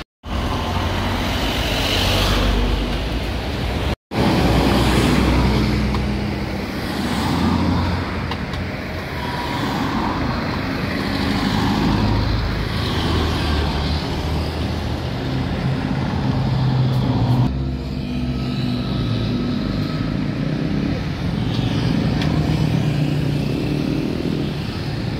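Steady road traffic noise of passing vehicles, a low rumble that swells and fades as they go by, cutting out for an instant twice in the first few seconds.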